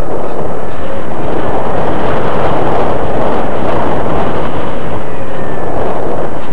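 Slow Flyer 1400 RC plane in flight, heard from its onboard camera: a loud, steady rush of propeller and airflow noise with a faint whine on top.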